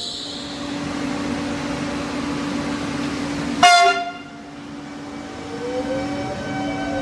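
Electric train at a station platform: a steady hum, cut through about three and a half seconds in by one short, loud train horn toot, then a rising whine as a Trenitalia Pop electric multiple unit begins to pull away.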